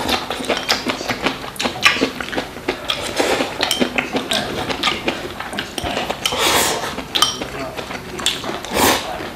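Chopsticks clicking against porcelain rice bowls, with close-up eating sounds: a steady run of small clicks and taps and a few short noisy rushes, about three, six and nine seconds in.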